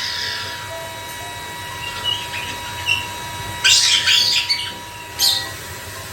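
White-bellied caique calling: a few short chirps, then a loud harsh screech about three and a half seconds in lasting about a second, and one more short squawk near the end.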